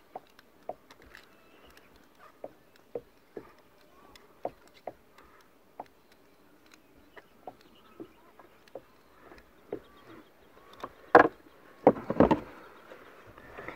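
Faint, irregular clicks and taps from fishing line being wound by hand onto a plastic handline reel in a kayak, then a few louder knocks near the end as gear is moved about.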